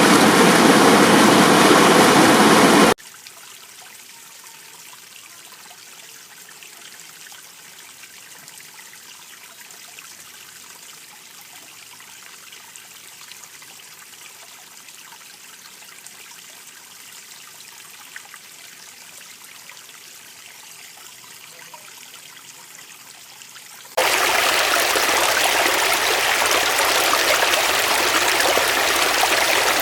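Running water, as of a stream, heard in three abrupt cuts: a loud rush with two faint steady tones for the first few seconds, a much quieter, even wash for about twenty seconds, then a loud rush again near the end.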